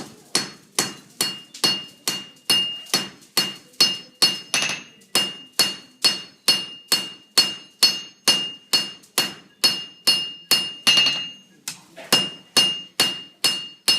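Hand hammer striking red-hot sword steel on an anvil, a steady rhythm of about two and a half ringing blows a second, with one brief pause near the end.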